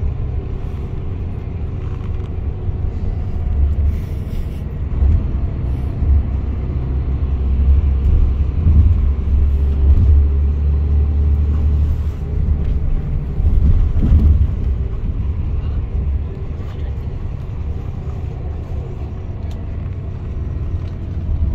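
Steady low rumble of a passenger coach's engine and tyres, heard from inside the cabin while it drives, growing louder for a few seconds in the middle.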